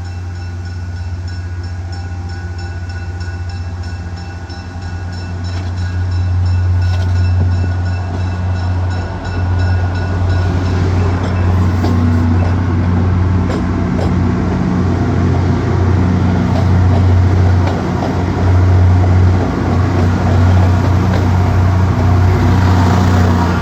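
MBTA GP40MC diesel locomotive's 16-cylinder EMD 645 engine under power as the commuter train departs, growing louder about five seconds in as it throttles up. Its bell rings during the first part, with high ringing tones fading out around ten seconds in.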